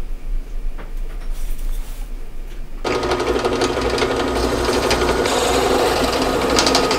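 Drill press running and boring into an aluminium angle, starting suddenly about three seconds in with a steady motor whine under the grinding of the bit cutting metal.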